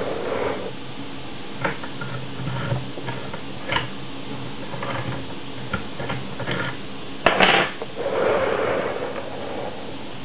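Light metallic clicks and scrapes of lock picks and a tension tool working the pins of an ABUS Pfaffenhain Wavy Line euro cylinder, which has five pin stacks and four side pins. A louder clatter comes about seven seconds in.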